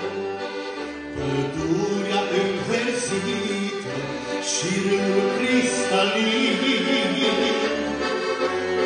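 Elkavox accordion playing a slow Christian song melody over repeated bass notes, amplified through a sound system, with a man singing along.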